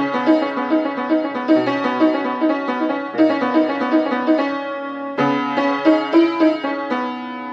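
Piano played: a steady run of notes, about three a second, over lower bass notes, breaking off briefly about five seconds in before starting again.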